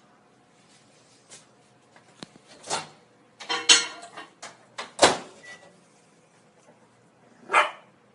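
A two-month-old Shih Tzu puppy, hungry for its meal, giving a few short, scattered yaps; the loudest comes about five seconds in.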